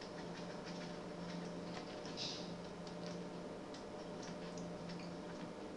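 Faint, irregular light ticks and clicks from drawing on a computer whiteboard, over a low steady hum.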